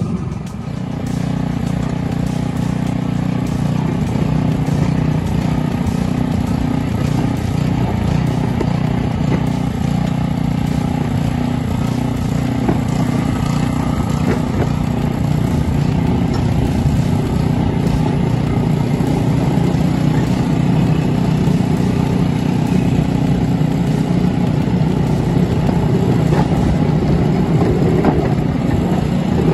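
Engine of a 10¼-inch gauge miniature railway locomotive running steadily while the train travels along the track.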